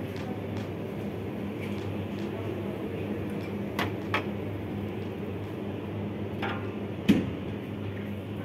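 Steady hum of a supermarket's refrigerated drinks cooler. About four seconds in, two short clinks come as a glass soda bottle is lifted from the shelf, and a louder thump follows near the end.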